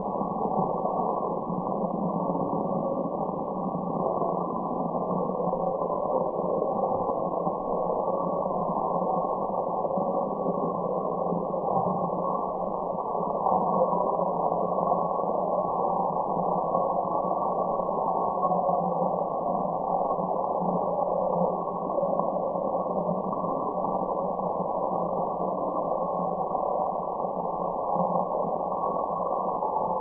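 Steady, muffled white noise for relaxation, filtered so that only a low-to-middle hiss remains and nothing high or bright is heard. It holds even, with no change in character.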